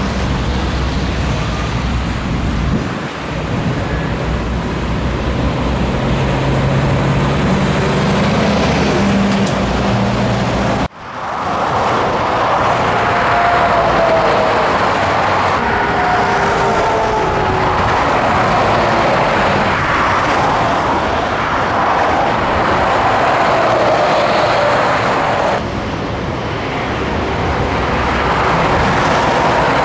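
Scania truck on the road: engine running steadily under road and tyre noise, with a faint high whine rising over the first several seconds. About eleven seconds in the sound drops out abruptly, then comes back as a louder rushing road noise.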